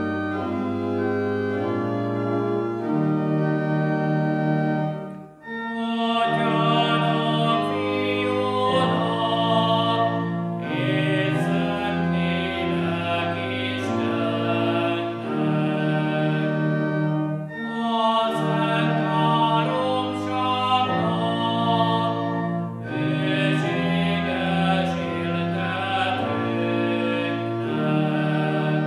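Church organ playing held chords, joined about five seconds in by a man singing a liturgical chant in phrases over the organ.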